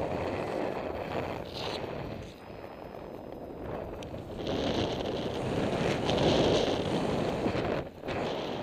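Wind rushing over the camera microphone of a paraglider in flight, a steady roar of airflow that eases off about two seconds in and swells louder again from about halfway, dipping briefly near the end.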